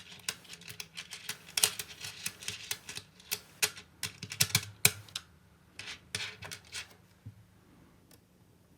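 Small magnetic balls clicking together as they are handled and placed, a rapid irregular run of sharp clicks that thins out after about five seconds and stops about seven seconds in.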